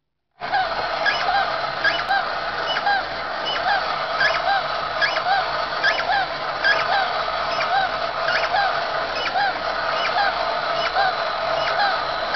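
Mechanical snake charmer toy switched on about half a second in, sounding a repeating piping note about twice a second over the low hum of its motor.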